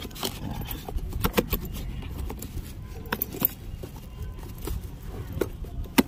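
Packaging being opened by hand: irregular crinkles, scrapes and clicks of paper and plastic as a plaque is pulled out of its box and wrapping.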